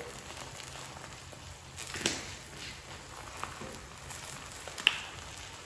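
Eggs frying on a Blackstone flat-top griddle: faint steady sizzling, with a few light clicks, the clearest about two seconds in and near the end.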